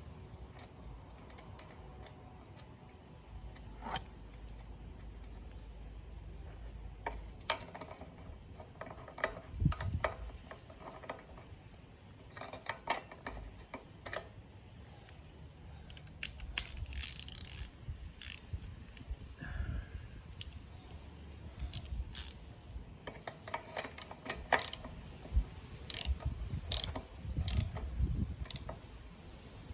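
Ratchet wrench clicking in short irregular runs, with scattered metal clinks and knocks, as a lawn mower's spark plug is changed.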